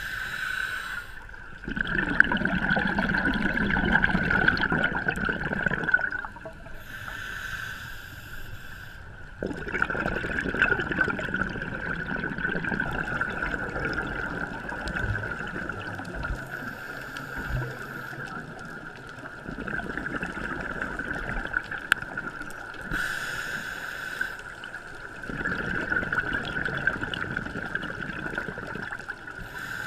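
Scuba diver breathing through a regulator underwater: short hissing inhales alternate with longer stretches of bubbling exhaust, a few slow breaths over the whole stretch, with a steady high tone underneath.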